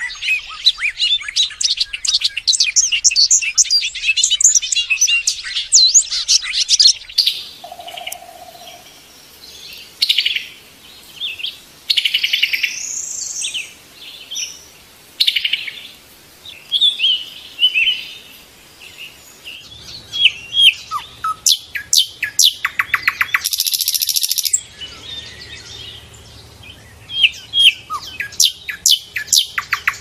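A small songbird singing rapid, high chirping phrases and trills, dense at first, then scattered phrases with short pauses, then dense again in the last third.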